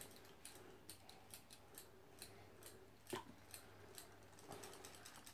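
Near silence: faint, irregular ticks and clicks over a low room hum, with one slightly louder click about three seconds in.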